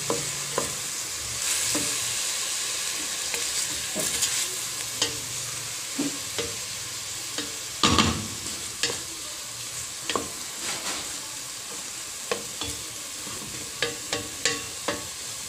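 Pork belly pieces with onion, garlic and ginger sizzling as they brown in oil in a stainless steel pot, stirred and turned with a wooden spatula that clicks and scrapes against the pot many times, most sharply about eight seconds in.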